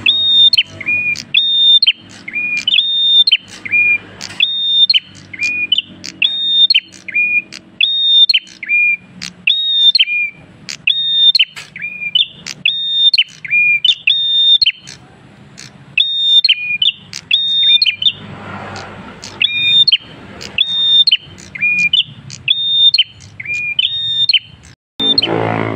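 Caged prenjak kristal songbird singing loud and nonstop, 'gacor': a two-note phrase repeated about once a second, a high clear whistle followed by a lower one, with a short pause about halfway through.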